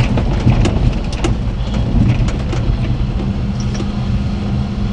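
Inside the cab of a 1992 Daihatsu Hijet S83P mini-truck on a gravel track: the 660cc three-cylinder carbureted engine is running over the rumble of tyres on gravel, with scattered clicks and rattles. About three seconds in, a steadier engine note comes up.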